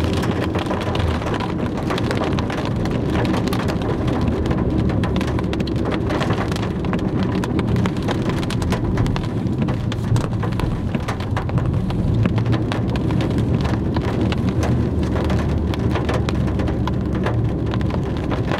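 Rain striking a moving car's roof and windscreen, heard from inside the cabin as a dense, steady run of small ticks over a low, even rumble of tyres on the wet road.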